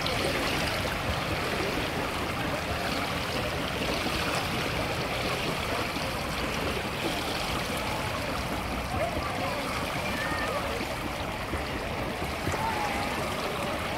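Steady rush and splash of swimming-pool water stirred by a swimmer, with faint distant voices.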